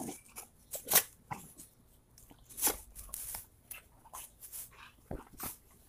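Two young bully dogs play-fighting, with irregular short scuffling and mouthing noises. The loudest come about a second in and again near three seconds.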